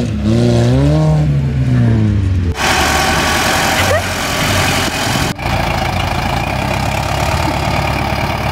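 An off-road SUV's engine revving, its pitch rising and falling as it drives past close by. After a cut about two and a half seconds in, a farm tractor's engine runs steadily.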